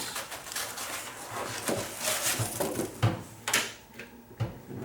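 Sheet-metal tool cart parts being handled and fitted together: a series of irregular knocks and clanks with scraping between them.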